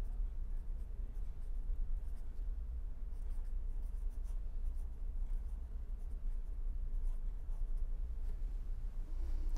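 Felt-tip pen writing on paper in short scratchy strokes, over a steady low hum.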